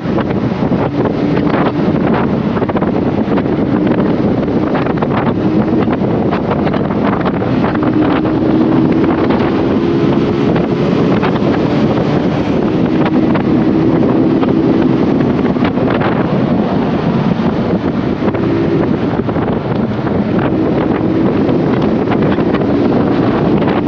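Wind buffeting the microphone of a moving motorcycle, with the Honda CBR150R's single-cylinder engine running steadily underneath and its pitch shifting slightly.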